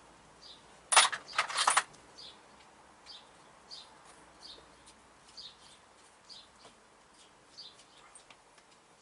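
Small metal parts clattering as they are rummaged through by hand, twice in quick succession about a second in. A bird then chirps over and over, one short high chirp roughly every two-thirds of a second.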